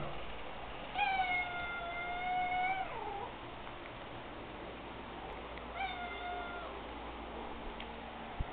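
Calico cat meowing twice. The first call comes about a second in and is long and drawn out, dropping in pitch as it ends. A shorter call follows a few seconds later, and there is one sharp click near the end.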